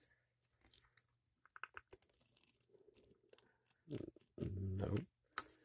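Faint clicking and scraping of metal parts as hands work at the cylinder and crosshead slides of a small bar-stock model steam engine, trying to pull them loose. A short hum of a man's voice comes about four and a half seconds in.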